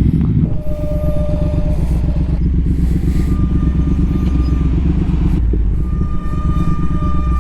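Triumph Speed Twin 1200's parallel-twin engine running as the motorcycle rides, with a thin, steady whistling tone that comes and goes several times. The whistle is the squeal of the Brembo brakes under low-speed braking.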